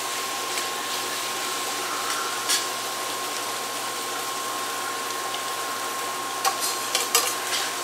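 Egg and vegetable hash sizzling steadily in a stainless steel frying pan on low heat, with a faint steady high tone underneath. A few light metal clicks come near the end.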